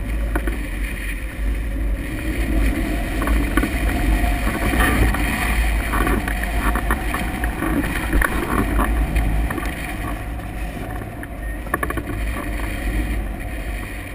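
Wind rushing over a glider-mounted camera's microphone in flight, a steady rush with heavy low buffeting, a little louder in the first half and easing somewhat after about ten seconds.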